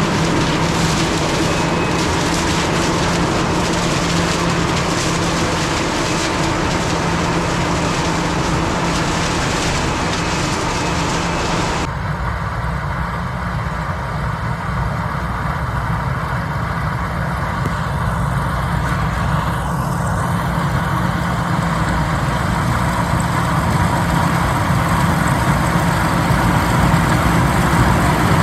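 Diesel engines of field harvesting machinery running steadily with a low hum. About twelve seconds in, the sound changes abruptly as the high hiss drops away, leaving mostly the low engine hum.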